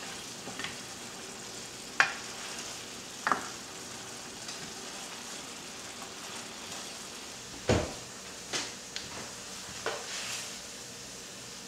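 A spoon stirring a thick cream-sauce stew of chicken, apples and prunes in a stainless steel sauté pan, the sauce sizzling steadily over the heat. A few sharp knocks of spoon against pan punctuate it, the loudest about two thirds of the way through.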